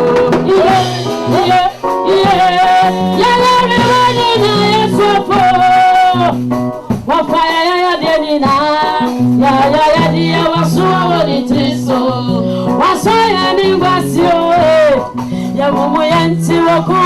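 Music with singing and a band: a melody line over a repeating bass line, without clear words at this point.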